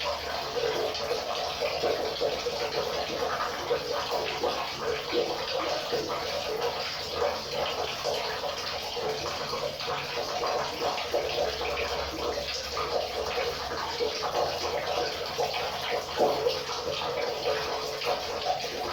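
River water running steadily, a continuous rushing sound that never lets up.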